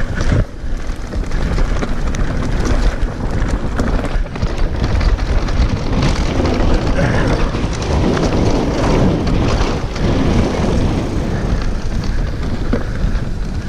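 Mountain bike riding fast down a rocky dirt trail: a continuous rumble and rattle of tyres and bike over stones and ruts, with heavy wind buffeting on the microphone.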